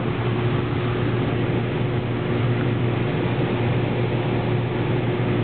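Running noise of a Metro Gold Line light-rail car heard from inside the car while it travels: a steady low hum with a fainter steady tone above it over the even rumble of wheels on rails.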